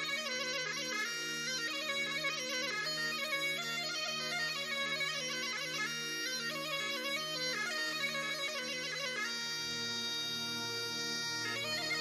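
Bagpipe music: a quick, ornamented melody over a steady low drone, the tune shifting about nine seconds in.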